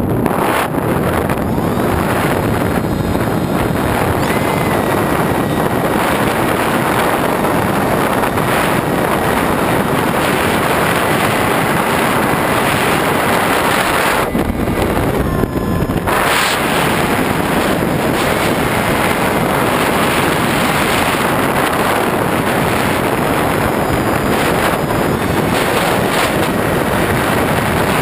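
Wind rushing over the onboard camera microphone of an EPP-FPV foam RC plane in flight, mixed with the steady running of its electric motor and propeller. A faint thin whine steps up and down in pitch a few times.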